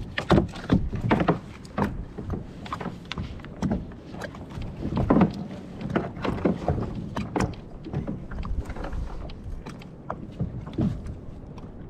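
Water splashing and irregular knocks and bumps against a kayak hull as a hooked cabezon is brought alongside and landed with a gaff.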